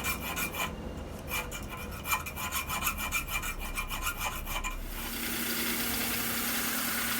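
Hand file rasping across the forged medium-carbon steel hammer head in quick strokes. About five seconds in this gives way to the steady whir of a belt sander.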